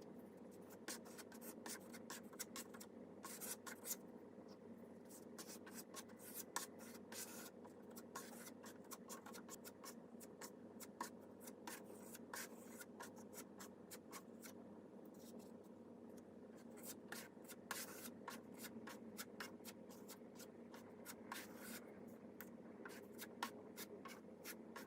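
Putty knife spreading and smoothing joint compound over mesh tape on a drywall patch: faint, repeated scraping strokes throughout, over a steady low hum.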